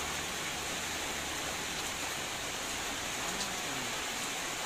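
Heavy rain falling as a steady, even hiss, with a few faint drop ticks.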